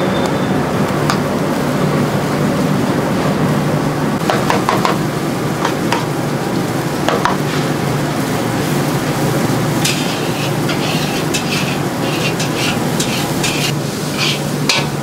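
Dosa batter being spread and rubbed across a hot griddle with a small bowl and cloth: scraping and sizzling over a steady low hum. A quick run of scrapes comes in the last few seconds.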